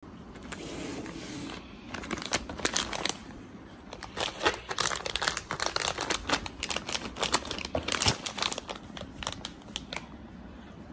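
A resealable plastic M&M's sharing-size candy bag crinkling as a hand handles and presses it: a soft rustle at first, then about eight seconds of dense sharp crackles.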